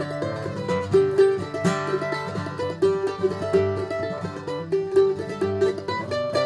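Background music: a quick tune played on plucked string instruments, many short notes.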